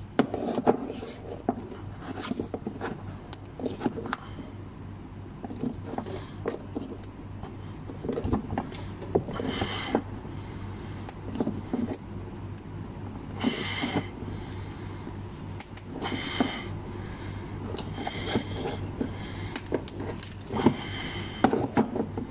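A metal tool prying at a fastener in a car's plastic wheel-arch liner: scattered clicks, knocks and scrapes of metal on plastic, with a few short, higher-pitched squeaky scrapes, over a steady low hum.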